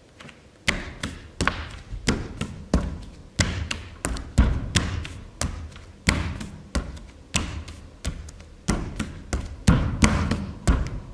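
Bare feet stamping and stepping on a stage floor in a rhythmic footwork pattern, about two to three thuds a second, starting just under a second in.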